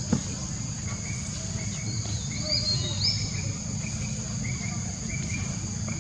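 Steady high-pitched insect drone with short, repeated rising chirps over it and a low rumble underneath. A single brief knock comes right at the start.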